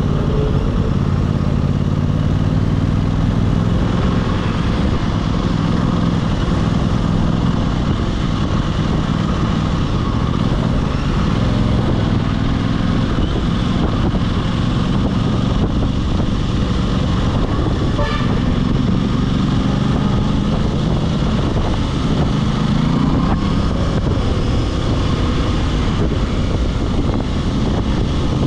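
Aprilia RS660 motorcycle's parallel-twin engine and exhaust running under way, the pitch shifting up and down with the throttle, with a rise in revs late on.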